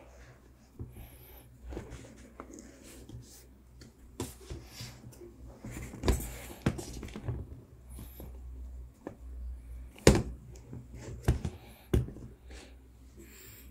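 Handling noise from a pair of sneakers on a tabletop: rustling and scattered knocks as the shoes are moved and a packing insert is pulled from one, with the sharpest knocks about six, ten, eleven and twelve seconds in.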